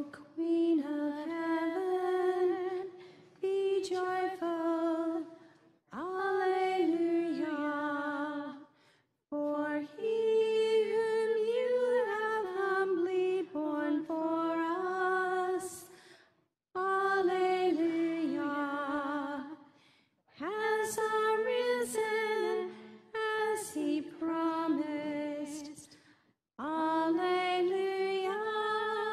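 A woman singing a slow melody solo and unaccompanied, in phrases of a few seconds each, with short pauses for breath between them.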